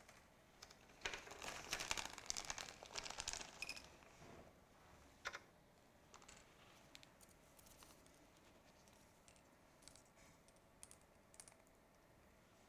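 Hands handling small hard parts and thread at a sewing machine: a quick run of clicks and rattles starting about a second in and lasting about three seconds, then a few scattered clicks.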